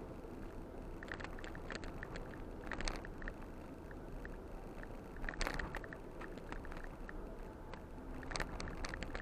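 Ford Bronco driving off-road, heard through a dashcam inside the cabin: a steady low rumble of engine and tyres with irregular knocks and rattles over bumps, the sharpest about three and five and a half seconds in and a cluster near the end.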